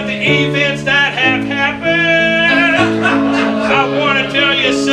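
Keyboard playing held chords that change about once a second, with a voice singing over them.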